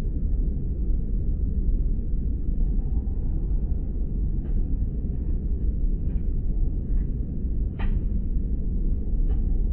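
Airliner cabin noise in flight: a steady low rumble of engines and airflow, with a few faint clicks, the clearest about eight seconds in.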